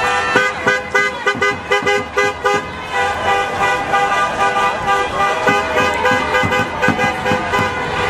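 Several car horns honking together, first in a quick run of short toots about three a second, then held longer, with voices shouting in the street.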